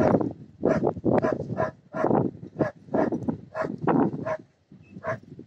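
Footsteps crunching through deep snow, about three steps a second, with short squeaky notes between some of them.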